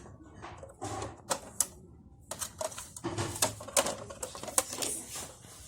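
Irregular light clicks and taps of small toy kitchen pieces being picked up and set down.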